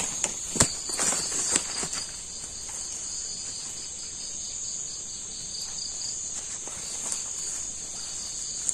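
Night insects, crickets, chirring steadily in a high, even chorus, with a faster pulsing trill just beneath it. A few sharp knocks and rustles stand out in the first two seconds, the loudest about half a second in.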